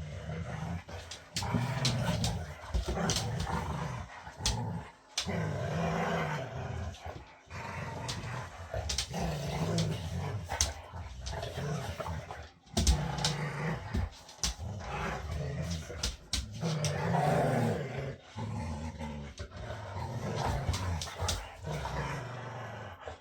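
Boxer dogs growling at each other in rough play, a low rumbling growl in uneven pulses, with sharp clicks and knocks of scuffling now and then.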